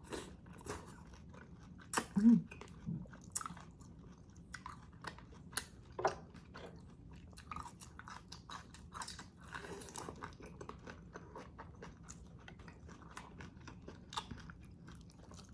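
A person chewing and eating close to the microphone: irregular wet mouth clicks and smacks throughout, with a brief hum about two seconds in.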